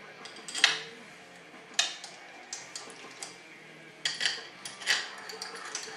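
Sharp metallic clicks and taps of transmission valve body parts being handled and set together on a workbench, about one a second with a quick cluster a little after the middle.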